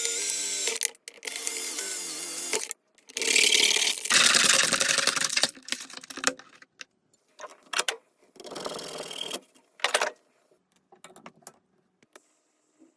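A small power tool's motor run in about four bursts of one to three seconds each, stopping briefly between them, followed by a few light clicks and knocks.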